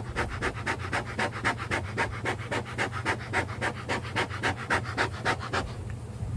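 Bee smoker's bellows squeezed rapidly, a fast run of short airy puffs, about six a second, stopping shortly before the end, over the steady low hum of honeybees.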